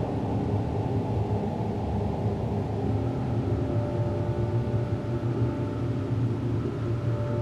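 Ambient electronic drone music: a dense low rumbling drone with several held synth tones above it, a higher tone growing clearer about halfway through.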